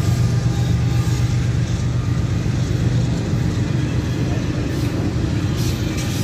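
Double-stack intermodal freight train passing: a steady rumble of steel wheels on the rails.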